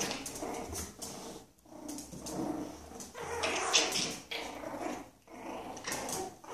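A Yorkshire terrier and her puppies growling in play, in a run of short rasping bursts with brief pauses between them.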